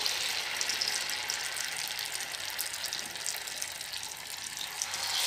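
Batter-coated paneer deep-frying in hot oil in a pan: a steady sizzle with dense fine crackling, swelling louder near the end.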